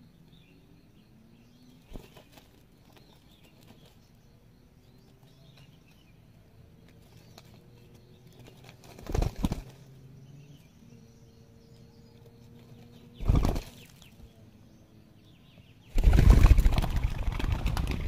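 Spotted doves cooing softly, drawn-out low coos repeating in the background. Wings flap in short loud bursts about nine and thirteen seconds in, and a louder flurry of wingbeats lasts about two seconds near the end.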